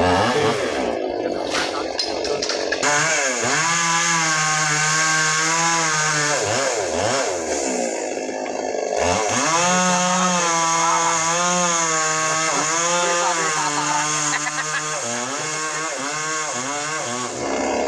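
Two-stroke chainsaw with a 22-inch bar running at high revs, its pitch wavering as it cuts wood. The revs sag and break off briefly about eight seconds in, then rise again and hold until near the end.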